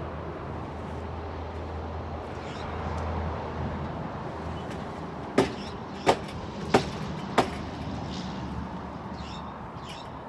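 Four sharp knocks in quick, even succession, about two-thirds of a second apart, over a steady low rumble.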